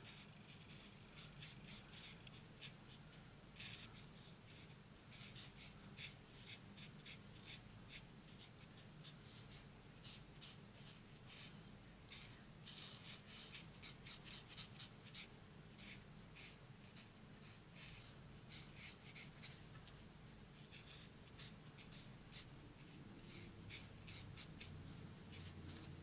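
Faint scratching of a felt-tip marker on cardstock: irregular clusters of quick, short colouring strokes as small stamped flowers are filled in.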